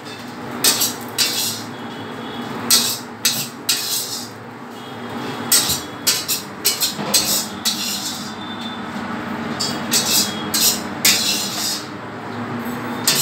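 Metal clattering as breaded chicken strips are laid into a wire fryer basket: irregular sharp clinks and knocks of the wire basket and steel trays, spaced a fraction of a second to a second apart, over a steady low hum.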